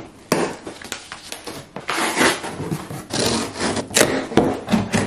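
Cardboard boxes being handled and opened: scraping and rubbing of cardboard in uneven bursts, with a few sharp knocks.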